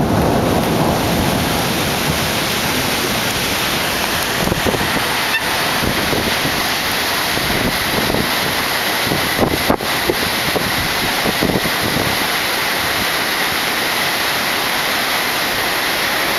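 Heavy thunderstorm rain and wind making a steady, loud hiss, with the tail of a thunder rumble fading in the first second.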